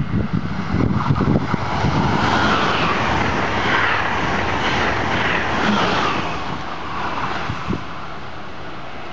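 Amtrak Acela Express high-speed electric trainset passing close by: a loud rushing noise of wheels on rail and moving air builds over the first couple of seconds, holds for about four seconds as the cars go by, then drops away. Wind buffets the microphone at the start.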